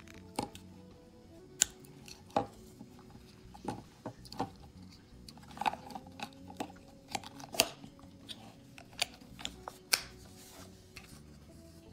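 Sharp plastic and metal clicks of a 9-volt battery being snapped onto its connector and pressed into the plastic battery compartment of a handheld digital sound level meter. About a dozen clicks come at irregular intervals, a few of them much louder than the rest.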